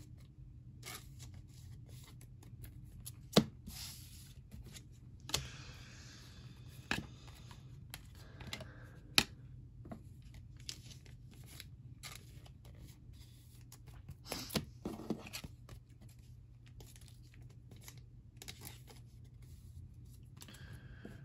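Football trading cards being slid into thin plastic penny sleeves and laid on a table: soft rustling and crinkling of the plastic, broken by a few sharp clicks, the loudest about three and a half and nine seconds in.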